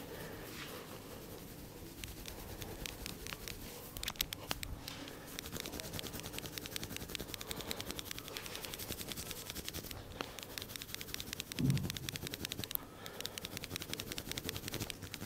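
Rapid, even tapping strokes of a head massage, many taps a second with a couple of brief pauses, and one louder low thump about two-thirds of the way through.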